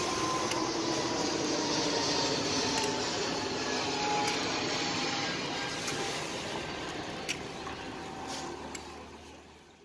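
Steady hubbub of a busy street market, with a few sharp clicks and crinkles of a plastic bag as jelly cups are dropped into it; it all fades out near the end.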